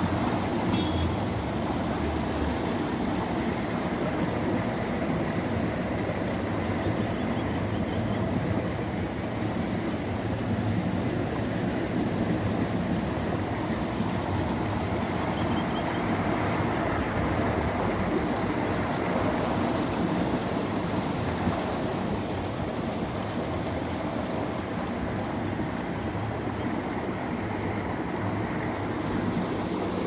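Steady noise of water flowing along an open earthen channel, even and unbroken throughout.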